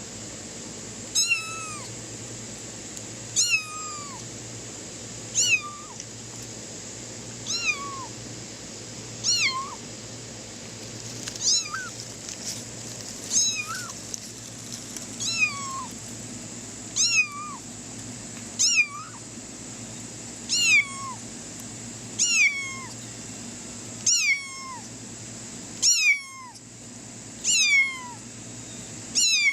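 A cat meowing over and over, one short meow falling in pitch about every two seconds.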